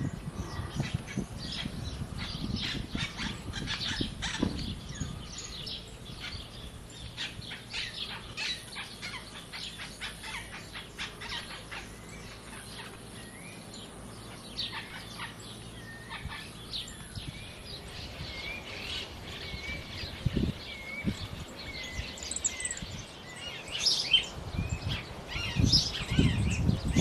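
Many small birds chirping with quick overlapping calls, joined in the second half by a few longer warbling phrases.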